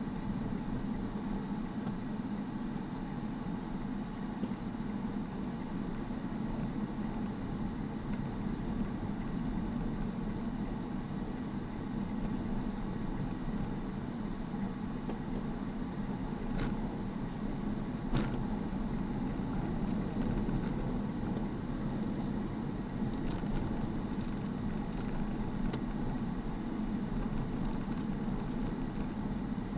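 Steady drone of a car's engine and tyres heard from inside the cabin while driving, with two sharp clicks about a second and a half apart midway.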